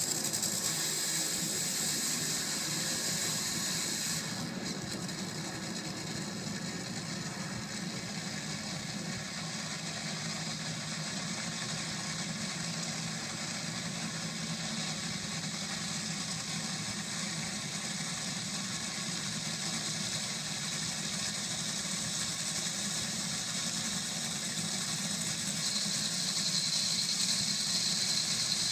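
Supercharged nitromethane Top Fuel dragster engines idling steadily, growing a little louder near the end.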